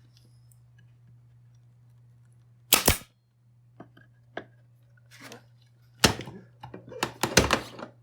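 Pin nailer firing pin nails into wood: sharp clacks, a quick double shot about three seconds in, one about six seconds in and several more in quick succession near the end.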